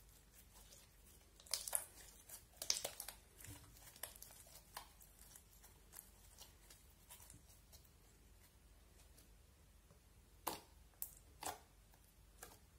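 Slime being kneaded, squeezed and pressed by hand, giving off scattered sticky clicks and pops. The clicks come in clusters: a busy run about a second and a half in and another near the end.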